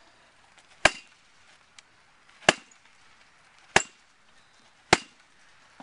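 A baseball bat smacking into a duct-taped heavy punching bag in rapid-fire swings: four sharp hits, a little over a second apart.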